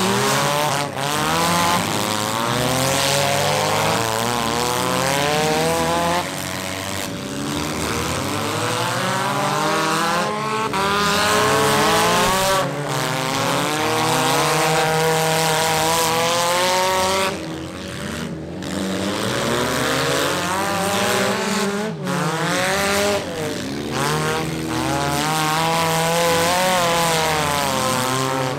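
Several demolition derby cars' engines revving hard at once, their pitch rising and falling again and again as they accelerate and slow.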